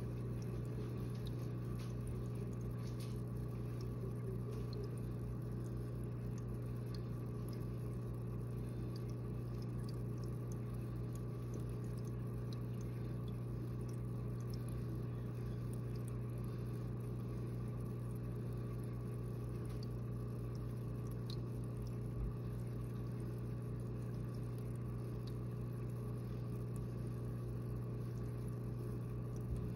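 Aquarium pump humming steadily, with faint scattered ticks and a couple of soft knocks.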